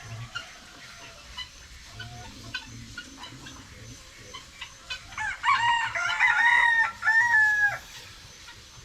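Rooster crowing once, a loud crow of about two and a half seconds starting about five seconds in, rising and breaking into three joined parts. Before it, short faint clucks and clicks from the flock.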